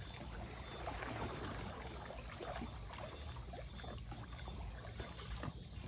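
Kayak paddle dipping into calm lake water, with soft trickling and lapping, over a steady low rumble.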